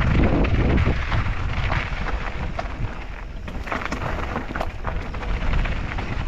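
Mountain bike rolling down a loose, rocky singletrack: tyres crunching over gravel and stones, with scattered sharp clicks and rattles from the bike. Wind rumbles on the camera microphone throughout, heaviest in the first second.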